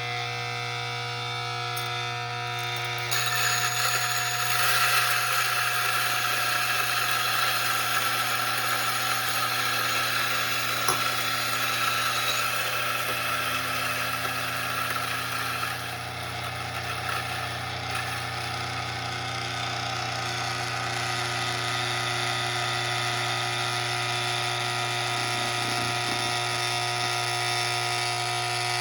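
DF64E flat-burr espresso grinder with 64 mm SSP high-uniformity burrs, its motor running steadily while grinding 8 grams of medium-dark coffee beans. About three seconds in the sound gets louder and noisier, a gritty grinding over the motor hum.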